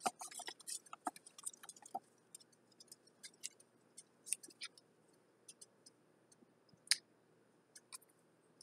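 Small paper seed packets being handled: light crinkles and ticks, busiest in the first two seconds, then scattered, with one sharper click near seven seconds.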